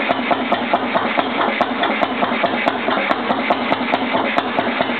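1909 Cady 3 hp two-stroke stationary engine running steadily, with an even, rapid firing beat.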